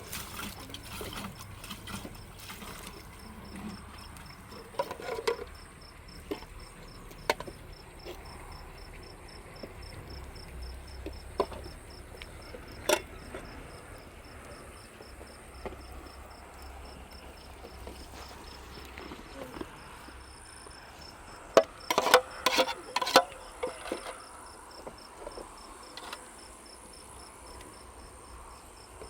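Crickets chirping in a steady, rapid, high-pitched trill, with scattered sharp clicks and knocks and a short loud cluster of them a little past the middle.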